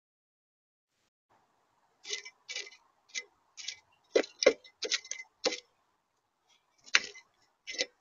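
Blue jay feeding from a feeder tray of peanuts and seed: a string of irregular, sharp taps and clicks of its beak and the nuts against the tray, starting about two seconds in.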